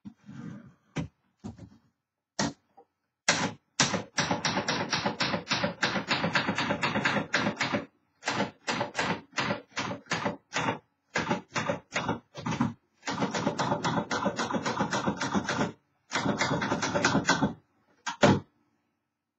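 1970s Remington Streamliner manual typewriter being typed on: runs of quick keystrokes, several a second, broken by short pauses, with one loud single strike near the end.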